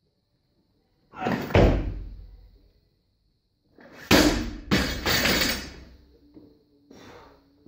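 Barbell snatch: a heavy thud with rattling about a second and a half in as the lifter pulls and drops under the bar. About four seconds in, the barbell is dropped from overhead and its rubber bumper plates slam onto the platform and bounce twice, with a smaller knock near the end.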